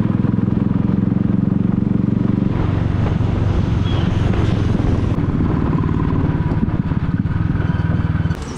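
Royal Enfield Bullet motorcycle's single-cylinder engine running steadily under way, with road and wind noise, heard from the rider's seat. Its level drops a little near the end.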